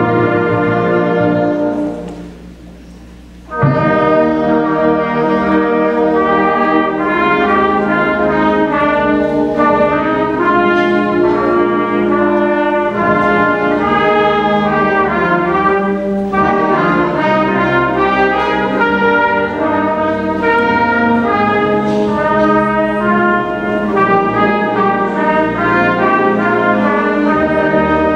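Concert band playing, with brass to the fore. About two seconds in the band drops away to a soft passage for a second or so, then the full band comes back in loudly and plays on.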